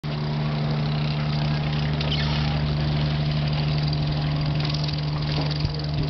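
An engine running with a steady, even hum that holds one pitch throughout.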